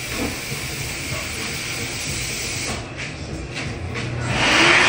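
A steady hiss, then an electric hand dryer starts about four seconds in with a loud rush of air.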